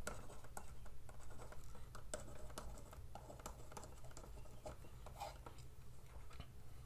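Faint scratching and tapping of a stylus writing on a pen tablet, in many short irregular ticks over a steady low hum.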